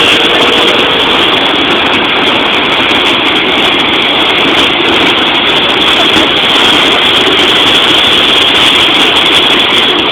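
Muddy floodwater rushing and churning in a swollen river: a loud, steady rush of water.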